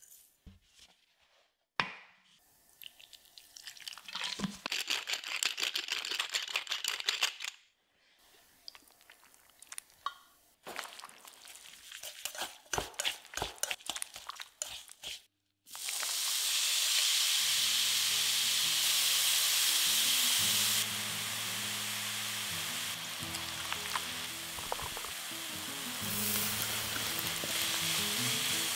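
Shredded king oyster mushrooms rustling and squelching softly as they are tossed with seasoning in a bowl. Around halfway they go into a hot oiled pan and sizzle loudly and steadily while being stirred.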